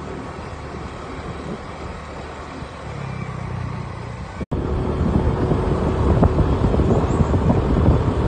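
Wind buffeting the microphone over the rumble of a vehicle moving along the road. About halfway through the sound drops out for an instant, and after that the wind rumble is louder and gustier.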